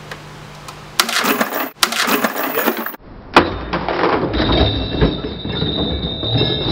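A glued 3/4-inch plywood dado joint cracking and giving way under load, with loud breaking and crashing as the bucket of bricks hung from it drops. Then a sharp knock and more rough clattering, with a steady high tone appearing midway.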